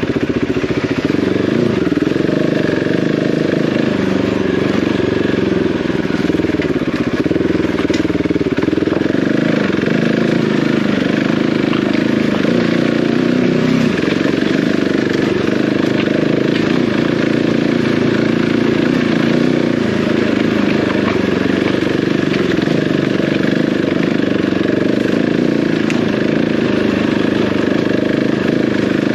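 Single-cylinder dual-sport motorcycle engine running continuously on a rough off-road lane, its note rising and falling a little with the throttle.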